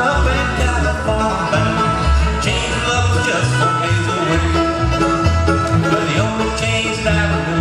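Acoustic bluegrass band playing live through a PA: banjo, mandolin and acoustic guitar over upright bass notes.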